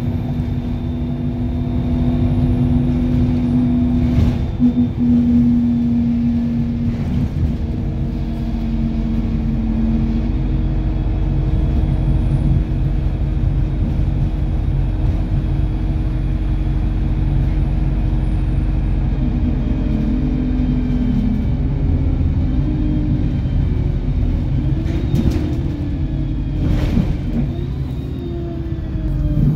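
Car driving along a road: steady engine and road rumble, with the engine note shifting in pitch near the end.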